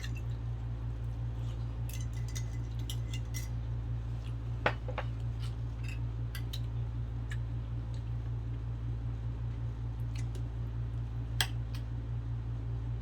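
A utensil clinking and tapping against a glass of iced dessert while eating, in scattered small clicks with two sharper knocks about five and eleven seconds in, over a steady low hum.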